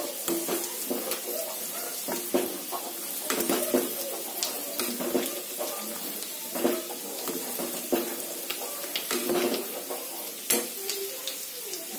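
Steel ladle stirring hot milk in a stainless steel pot, scraping and clinking against the pot's sides and bottom, over a steady hiss. The milk is curdling after vinegar was added, the paneer-making stage where it is stirred slowly.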